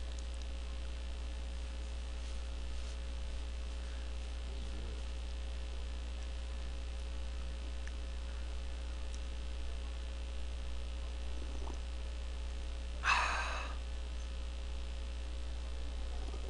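Steady low electrical mains hum on the recording, with a faint steady tone above it. About thirteen seconds in there is one short breathy noise.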